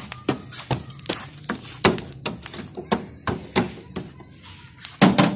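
A charcoal barbecue grill being stoked: a regular run of tapping strokes, about three a second, as the glowing coals are worked and sparks fly up, with a louder pair of knocks near the end.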